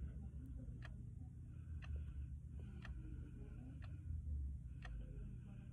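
A clock ticking steadily, about one tick a second, in a quiet room.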